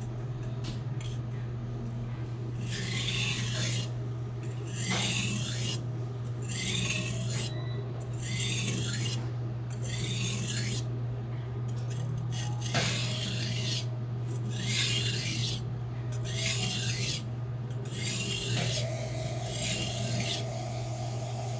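Hand-forged Blue #2 steel kitchen knife rubbed back and forth on a whetstone in rhythmic grinding strokes, roughly one a second, starting about two seconds in.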